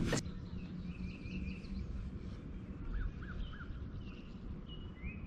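Birds chirping and calling, short high notes scattered through, with three quick rising-and-falling notes about three seconds in, over a steady low background rumble.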